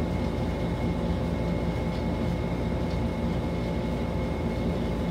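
Steady low background hum with a faint, thin high-pitched tone, unchanging throughout.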